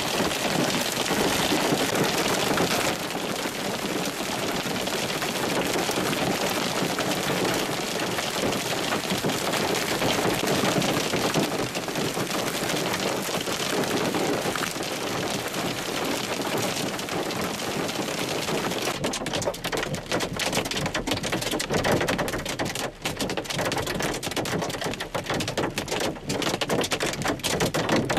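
Hail and rain pelting down in a dense, steady patter. About two-thirds of the way through the hiss thins and separate sharp hailstone hits stand out.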